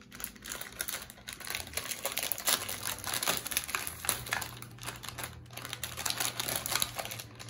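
Foil blind-bag packet and its plastic wrapping crinkling and rustling as they are opened by hand, a rapid irregular run of small crackles.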